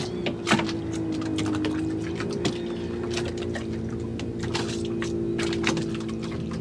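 A steady motor hum, dipping slightly in pitch about a second in, with water slapping and splashing against the boat's hull in many short sharp strokes.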